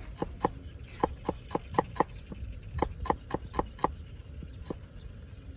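Knife slicing shallots on a thick round wooden chopping block: sharp, regular knocks of the blade on the wood, about four a second, in short runs with brief pauses. The knocks thin out and stop a little before the end.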